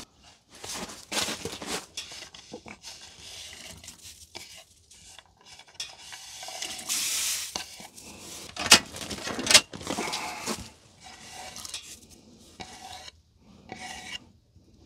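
Diced carrots and onion scraped off a bamboo cutting board into a stainless steel pot, with rasping scrapes and light knocks throughout and two sharp knocks about a second apart near the middle.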